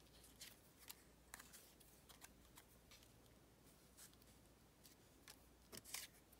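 Near silence, broken by a scattering of faint, short clicks and rustles of small paper pieces being picked up and set down on a tabletop.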